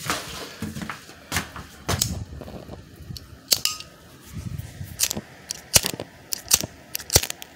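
Handling noise from a phone held right against the face: an irregular string of sharp clicks, the loudest in the second half, with low rubbing and bumping between them.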